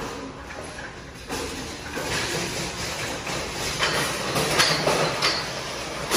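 Shopping trolley rolling and rattling along a store aisle, growing louder, with a few sharp clacks about four to five seconds in.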